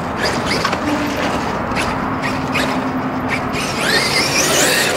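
Traxxas X-Maxx electric RC monster truck running on a dirt track over a steady rush of noise with scattered ticks. Near the end its motor gives a rising high whine as it accelerates.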